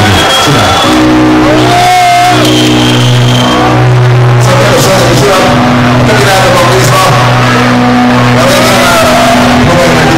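Live band playing heavy music at full volume, so loud that the phone recording is overloaded. Long held low chords shift every second or two.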